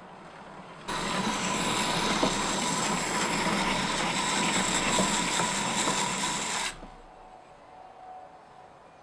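Steel knife blade ground against the abrasive rim of a turning wheel: a steady rasping hiss that starts suddenly about a second in and cuts off suddenly about two-thirds of the way through.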